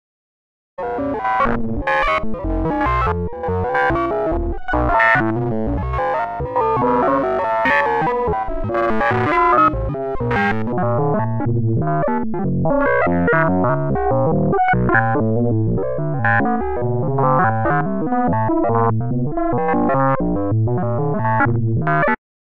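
Generative synthesizer sequence from a Max/MSP patch: a wavetable oscillator steps rapidly through pitches read from a noise matrix, passing through a resonant low-pass filter whose cutoff is also sequenced, giving almost R2-D2-like bleeps. It starts about a second in and cuts off suddenly near the end.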